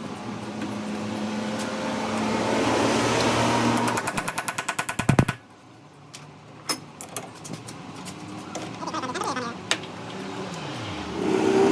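Small generator engine running, then beating in rapid pulses that stop abruptly about halfway through; after a quieter stretch with scattered clicks, the engine is running again near the end.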